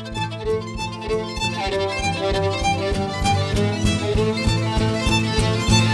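Instrumental break of a live song: a violin plays sustained melody notes over a steady beat, with no singing.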